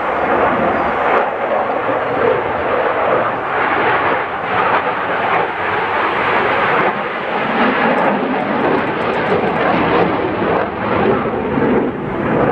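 Jet aircraft engine noise from a display jet flying over the sea: a continuous rushing roar that swells and dips slightly.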